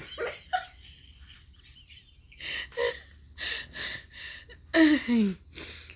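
Short wheezing, gasping breaths in separate bursts, the last two near the end carrying squeaky cries that fall in pitch.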